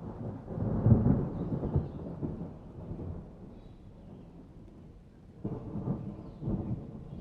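Thunder rumbling in a rainstorm. A deep roll swells to its loudest about a second in and fades over the next few seconds, then a second pair of rumbles comes near the end.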